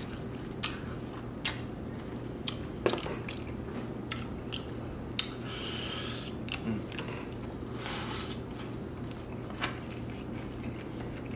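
Close-up chewing of chicken wings: scattered wet mouth clicks and smacks, about a dozen sharp ones at uneven intervals, over a low steady hum.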